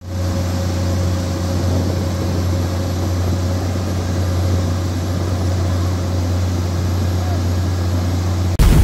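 Komatsu hydraulic excavator's diesel engine running steadily, a constant low drone. Near the end it is cut off by a sudden loud boom.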